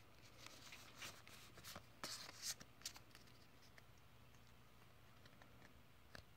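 Faint rustling and crinkling of a foil booster pack and trading cards being handled, mostly in the first half, then near silence.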